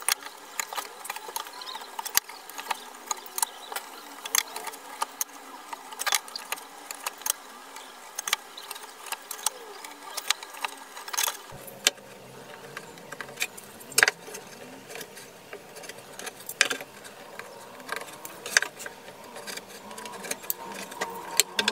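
Light clicks and knocks at irregular intervals over a faint steady hum, the sound of tools and pieces being handled at a workbench.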